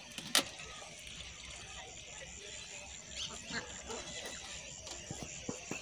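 Quiet handling noises as a hand moves over the plastic water tank toward a coil of twisted wire: one sharp click less than half a second in, then faint light taps and rustles.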